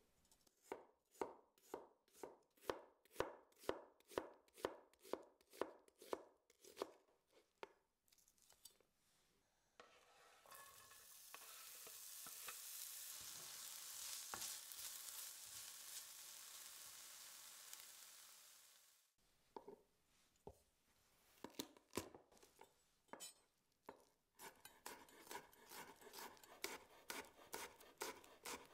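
A kitchen knife slicing a red onion on a wooden cutting board, steady strokes about three a second. Then sliced onion sizzling in hot oil in a pan as it is stirred with a wooden spoon. Then the knife chopping garlic on the board, the strokes quickening near the end.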